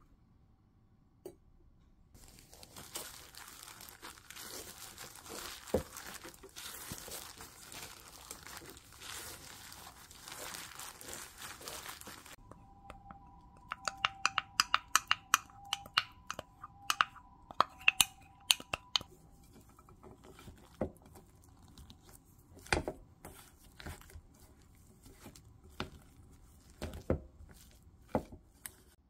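Bread dough being mixed in a bowl. First there is a long stretch of rustling and scraping as flour is worked in. Then comes a run of sharp clicks and taps over a faint steady hum, and after that scattered knocks of a wooden spoon against the bowl.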